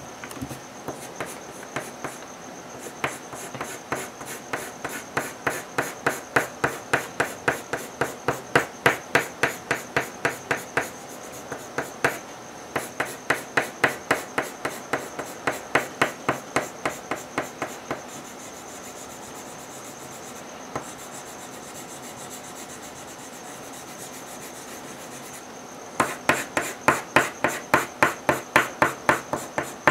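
Red coloured pencil shading rapidly back and forth on paper, about three scratchy strokes a second. The shading stops for several seconds in the middle and starts again near the end.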